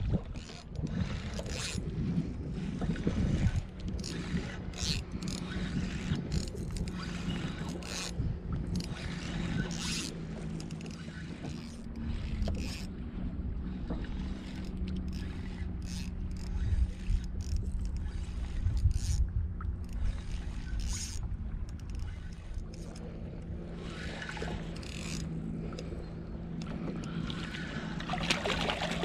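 Wind buffeting the microphone on a fishing kayak, with scattered short knocks and scrapes on the boat and a steady low hum underneath.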